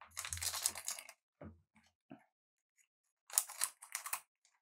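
Trading cards being handled and slid against each other: two spells of crisp rustling, about a second each, at the start and again near the end, with a few light taps in between.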